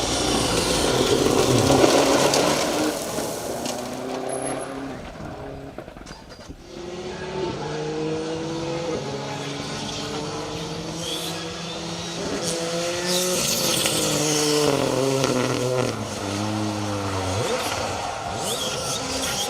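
Rally car going past at speed, then a rally car engine pulling hard up through the gears, its pitch climbing and dropping at each shift.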